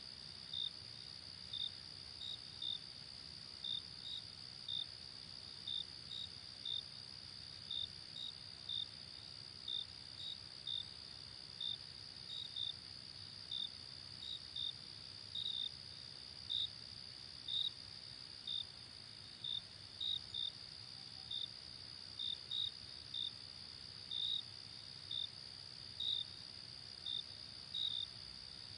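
Crickets at night: a steady high-pitched trill with short, separate chirps laid over it, about one or two a second at an uneven pace.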